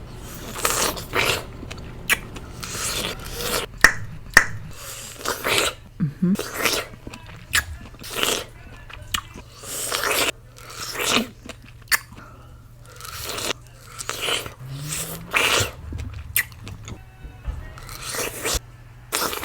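Close-miked mouth sounds of eating strawberries: repeated wet bites and chewing, coming irregularly, each lasting a fraction of a second, over a faint low steady hum.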